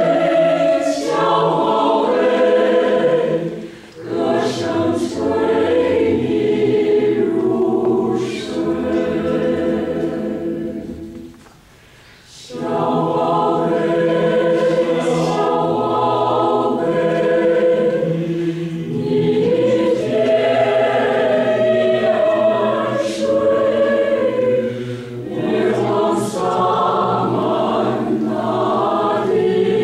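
Choir singing sustained phrases in harmony, broken by short breath pauses, the longest about twelve seconds in.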